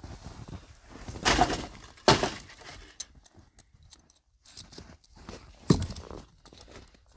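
Snow-covered birch logs being handled and loaded onto a firewood sled: a scraping thud a little over a second in, a sharp wooden knock about two seconds in, and another sharp knock near the end.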